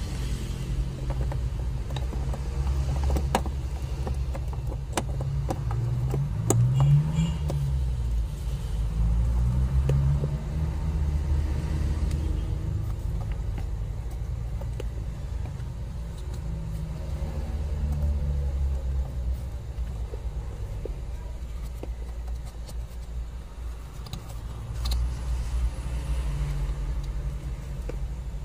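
A low vehicle engine rumble whose pitch rises and falls in a few swells, with scattered clicks and taps from hands handling the plastic blower motor housing under the dashboard.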